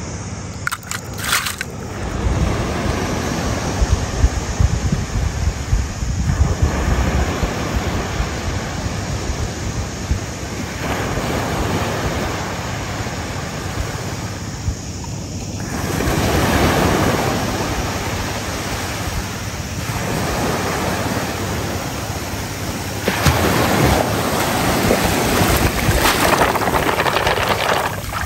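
Sea surf washing up on a sandy beach, the hiss of the water swelling and fading every few seconds, with wind rumbling on the microphone.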